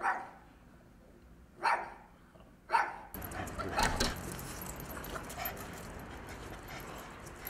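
Dogs barking, among them a Boston terrier: three short sharp barks about a second apart, then more barks over a steady background hiss that comes in about three seconds in, the loudest bark near four seconds.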